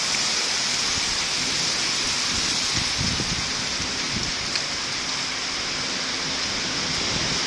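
Heavy rain pouring down in a thunderstorm: a steady, even hiss of a downpour.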